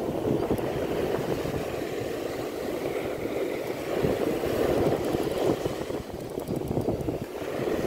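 Wind buffeting the microphone in an uneven rumble, over the steady wash of surf breaking on the beach.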